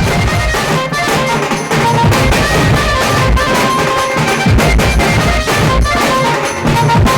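Tasa band music: dense tasa drum strokes and heavy bass drum beats under a keyboard melody of held notes.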